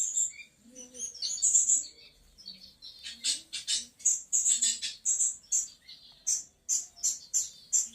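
Small birds chirping: many short, high chirps, settling in the last couple of seconds into an even run of about three a second.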